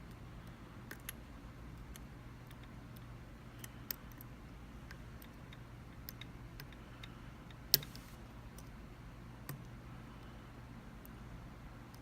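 Dimple lock pick and tension wrench working the pins of a JMS dimple lock: scattered small metallic clicks and ticks as the pins are probed and set, with one sharper click about two-thirds of the way through.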